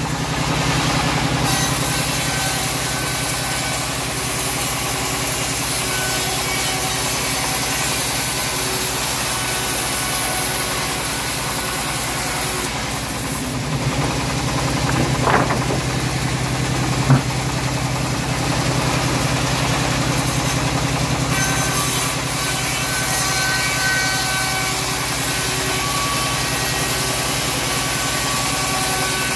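Homemade engine-driven band saw running steadily while ripping a teak plank, the engine's even drone under the blade's cutting noise. One short sharp knock about seventeen seconds in.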